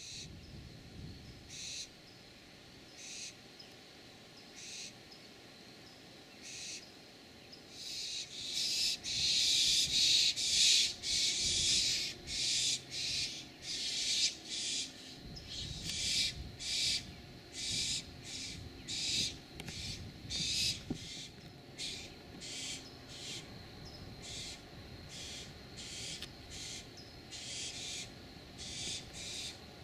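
Barn owls giving repeated rasping hiss calls: short, harsh bursts about one or two a second. The calls grow louder and overlap about a third of the way in, then carry on more evenly.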